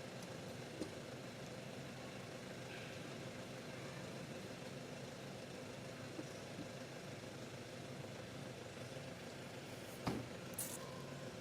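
Steady hum of an idling engine, with a few faint clicks and one sharp knock near the end.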